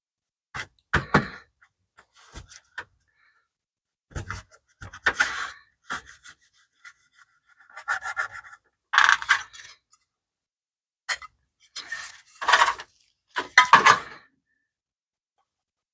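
Scouring pad scrubbing a thin sheet-metal engine heat shield in short bursts of rubbing, separated by silent pauses, with a few sharp clicks of the part against metal.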